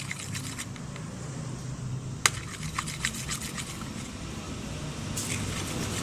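Spoon stirring food colouring into glue in a container: scattered soft clicks and ticks, with one sharper click about two seconds in, over a steady low hum.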